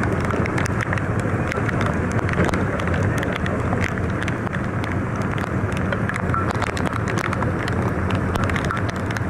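Steady outdoor noise with wind buffeting the microphone over a low, even hum, peppered with many small clicks.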